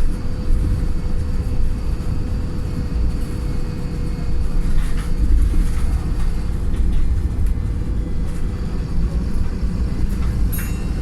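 Inside a Wright Pulsar single-decker bus on the move: its tired diesel engine thrashing with a deep rumble and a steady whine. A brief rattle comes near the end.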